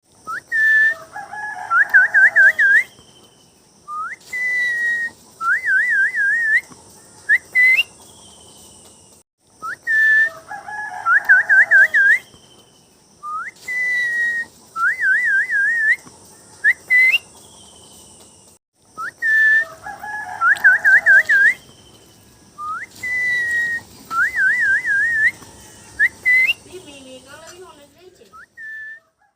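Pet green parrot whistling: short rising notes, held tones and warbling trills, the same run of phrases heard three times over.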